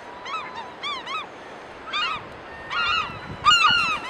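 Gulls calling over and over: short, downward-arching cries, often in quick pairs, with several birds overlapping and the calling loudest about three and a half seconds in.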